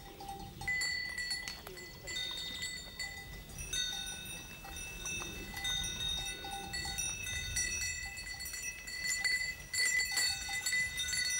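Goat bells clanking on a herd of goats on the move, several bells ringing at once; the ringing starts about a second in and grows fuller from about four seconds on.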